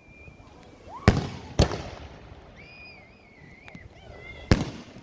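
Aerial fireworks shells bursting close by: two loud booms about half a second apart near a second in, and a third near the end, each trailing off in echo. Between them a high, wavering whistle runs for about two seconds.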